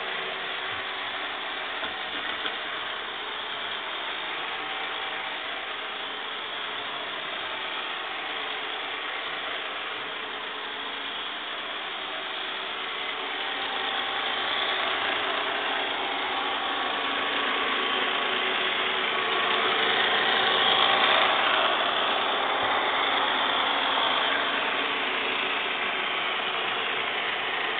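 Robot vacuum cleaner running, a steady mechanical whir that grows louder about halfway through.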